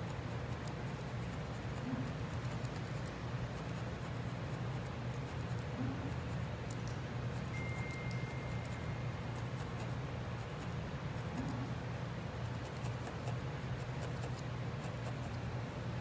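A felting needle stabbing again and again into wool on a felting pad, a run of small scratchy pokes, over a steady low hum.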